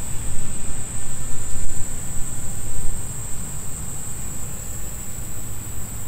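Insects trilling steadily at a high pitch outdoors, under a loud, uneven low rumble of wind on the microphone that eases off about halfway through.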